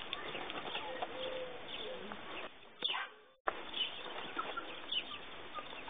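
Birds chirping and cooing, with a short drop-out a little before the middle.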